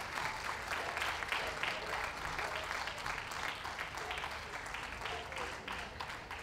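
Crowd applauding, a steady patter of many hands clapping.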